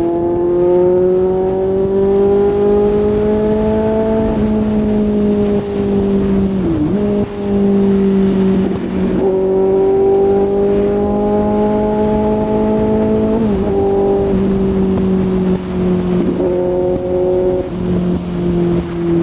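Kawasaki Z800's inline-four running through a full aftermarket exhaust while riding. The engine note climbs slowly, then drops or dips sharply several times as the throttle is rolled off or gears change.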